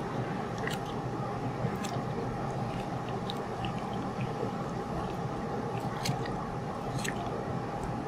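Small dissecting scissors snipping through pig heart muscle, cutting open the right atrium: a few short, soft clicks at irregular spacing over a steady low background hum.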